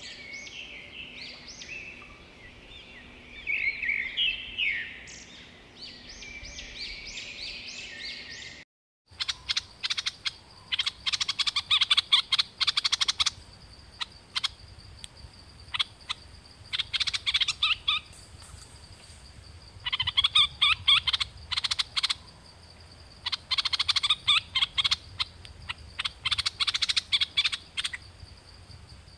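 Stripe-throated bulbul singing in repeated bursts of quick chattering notes, each burst about two seconds long with pauses of a few seconds between, over a steady high whine. The first nine seconds hold a different, denser run of chirps that cuts off abruptly before the singing begins.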